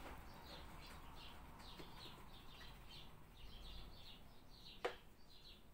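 Faint, repeated short chirps of a small bird, a few a second, each dropping in pitch, with a single sharp click near the end.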